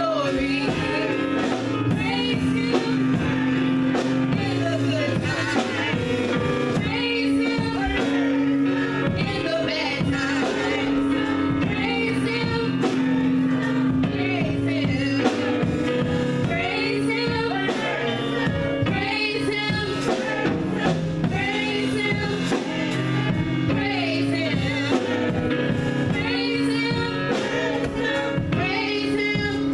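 Gospel music: singing voices over instrumental backing, with a steady held note beneath.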